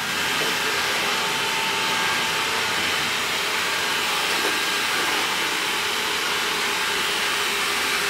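Xiaomi Roborock S5 robot vacuum running, its suction fan and brushes making a steady rushing hiss with a faint steady whine as it cleans along the wall.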